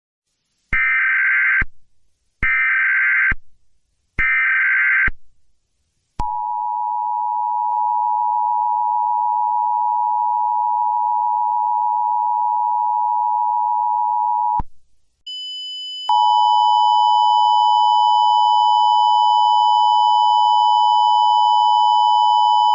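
Emergency Alert System tones: three short bursts of the digital SAME header, then the two-tone EAS attention signal held for about eight seconds. After a short break a high steady tone starts, and a second later the two-tone attention signal sounds again beneath it.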